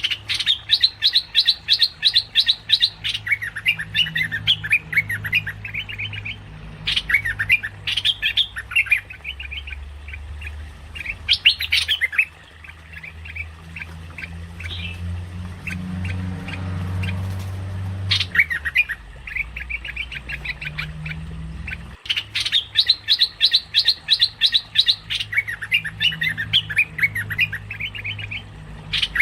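Merbah lekir bulbul chattering as a bird-trapping lure call: fast runs of bubbling, rising and falling notes, repeated in long bursts with a few pauses, over a steady low hum.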